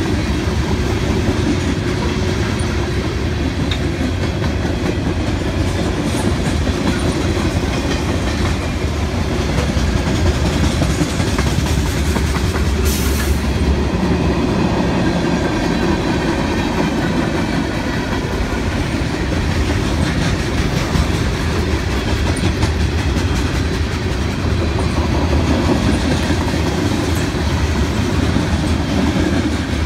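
Freight train cars rolling past steadily: a continuous rumble of steel wheels on rail, with rapid clacks as the wheels cross the rail joints.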